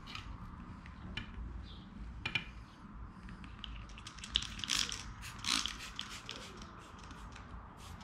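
Cloth rubbing over the metal drive-shaft parts of a DW 5000 double bass pedal as they are cleaned, with small metallic clicks and ticks as the parts are handled and turned. The rubbing is louder in a few short spells around the middle.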